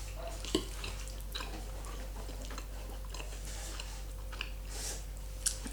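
Close-miked chewing of creamy carbonara pasta: soft wet mouth clicks and smacks, with a low steady hum underneath.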